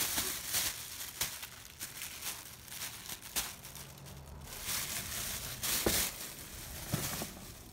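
Thin plastic shopping bag crinkling and rustling as a cat grabs, rolls and wrestles with it. The crackling comes in irregular spells, loudest at the start and again about six seconds in.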